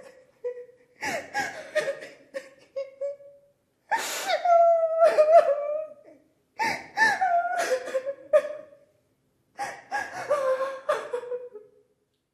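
A high-pitched voice, likely a woman's, in an acted domestic quarrel: four wavering, wordless outbursts of about two seconds each, with short gaps between them.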